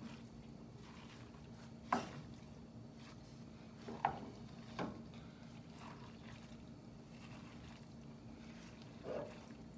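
A spoon mixing a bowl of homemade dog food of ground meat, vegetables and oils: about four soft knocks and scrapes, spaced a second or more apart, over a faint steady hum.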